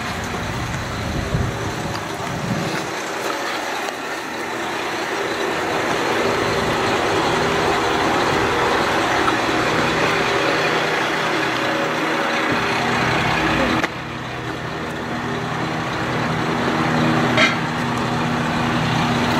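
KiHa 110 diesel railcar standing at the platform with its engine idling, a steady hum. The level drops abruptly about 14 s in, and there is one short sharp click near the end.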